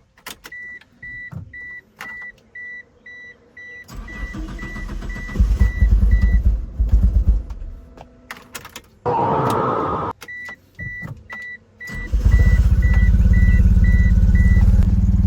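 Car warning chime beeping about three to four times a second while a 2G Mitsubishi Eclipse's four-cylinder engine is cranked and starts, running unevenly, then is started again and runs loud and steady, with a short rushing noise between the two starts. The engine has a misfire: cylinders 2 and 3 are not firing.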